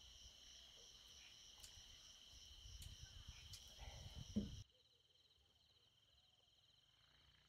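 Night insects trilling steadily in high, even tones, with low knocks and handling noise from people moving nearby and one sharp knock about four seconds in. Just after it the sound drops abruptly and the insect trilling carries on more faintly.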